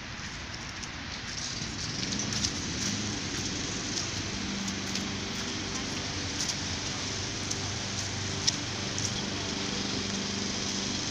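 A small engine running steadily with a low hum, coming in more strongly from about four seconds in, over a steady hiss with scattered light clicks.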